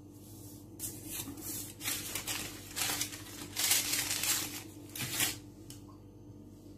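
Hands lifting cut pieces of raw doughnut dough off a floured counter and setting them down, making about five short rustling, scraping noises over a faint steady hum.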